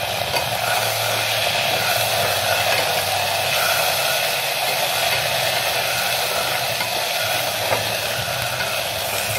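Onions and ginger-garlic paste sizzling steadily in hot oil in an aluminium pressure cooker as they are stirred with a ladle, with a low steady hum underneath.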